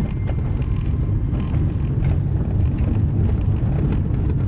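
Car driving on a gravel road: a steady low rumble of engine and tyres on the loose surface, with scattered faint clicks of stones.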